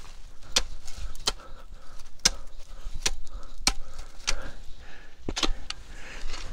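Sharp metallic clinks and scrapes, about nine at uneven intervals, from steel digging tools striking gravel and stones and being handled at a post hole.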